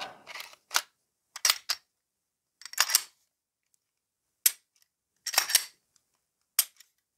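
Tara TM-9 striker-fired pistol being reassembled: a string of sharp clicks and clacks, some in quick pairs, as the slide is fitted back onto the frame and worked.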